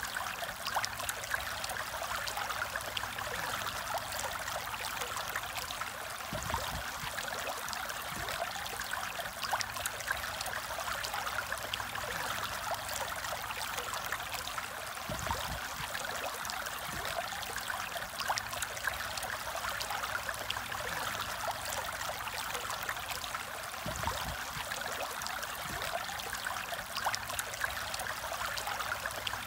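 Water in a home aquarium trickling and splashing steadily, with many fine crackles.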